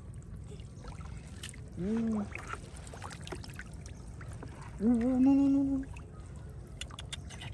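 Faint water trickling and light taps as a finger touches the pond surface, under two short pitched calls, one about two seconds in and a longer one rising then held about five seconds in.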